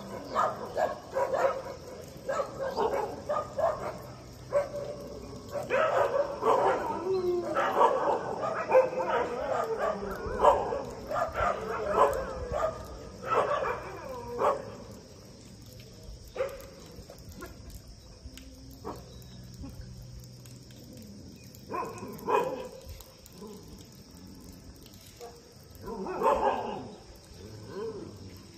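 Animal calls: a rapid run of short cries for about fifteen seconds, then only a few more, over a steady high insect chirring.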